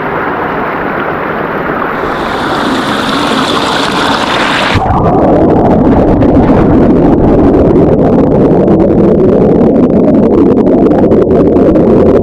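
Glymur waterfall's falling water, a loud steady roar that grows louder over the first few seconds and then holds.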